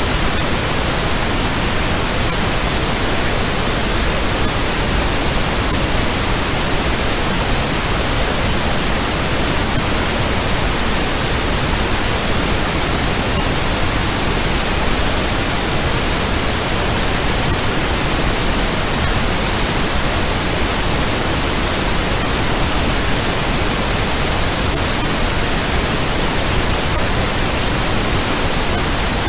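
Steady, loud hiss of synthetic noise, like radio static, spread evenly across all pitches and never changing.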